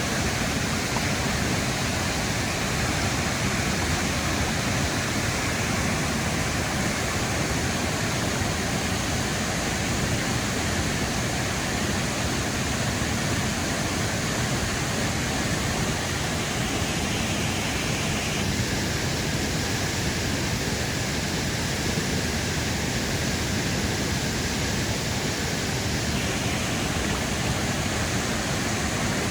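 Foster Falls waterfall: a steady, unbroken rush of falling water.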